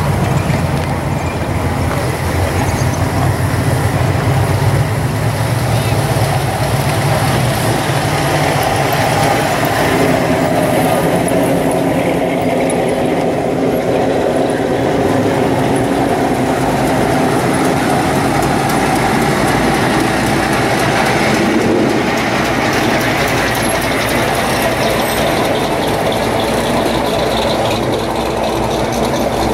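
Engines of classic American cars and hot rods running low and steady as they roll past one after another at walking pace, with no revving.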